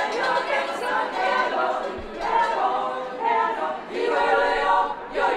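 Women's choir singing a cappella, several voices together in sustained phrases with short breaks between them.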